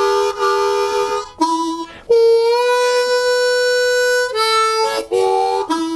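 Diatonic blues harmonica playing a short lick in double stops, two neighbouring holes sounding together: the 3 draw bent a half step with a little of the 4 draw bleeding in. A long held note in the middle slides up slightly as it starts, between shorter notes.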